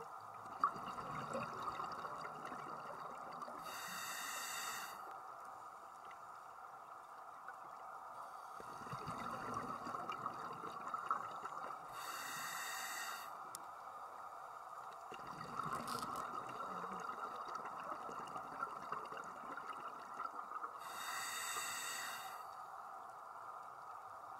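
Scuba diver breathing through a regulator underwater: three short hissing breaths about eight seconds apart, alternating with lower bubbling rumbles, over a steady underwater hum.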